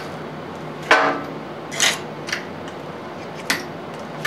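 Light metallic knocks and clicks from handling a DRO scale and its read head against a lathe's cross slide: four short sounds, the sharpest about a second in with a brief ring.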